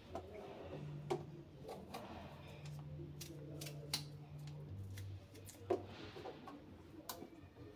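Peeled raw potato being slid across the blades of a pink plastic handheld slicer to cut thin slices, with irregular faint clicks and taps of plastic against a plastic cutting board and a couple of short scrapes.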